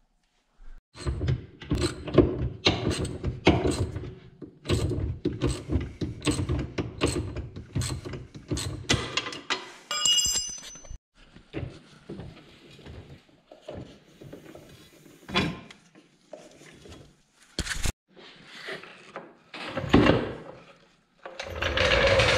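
Hand tools working on an EZ-GO golf cart's front steering as a replacement tie rod is fitted: quick runs of ratchet-wrench clicking with metal clanks and knocks, thinning out about halfway through. A single sharp knock comes near the three-quarter mark, and a louder steady rushing noise begins near the end.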